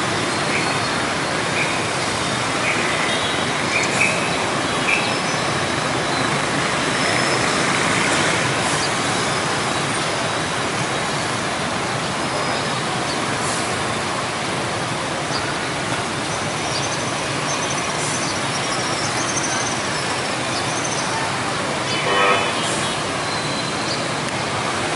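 Dense motorbike and car traffic crossing an intersection: a steady wash of small engines and tyre noise, with a few short beeps and one louder beep near the end.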